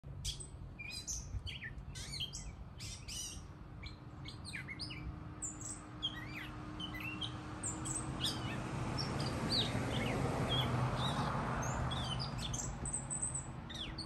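Northern mockingbird singing: a long series of short, varied chirps and whistled phrases, one after another. Underneath runs a low steady hum, and a rushing noise swells about halfway through and eases near the end.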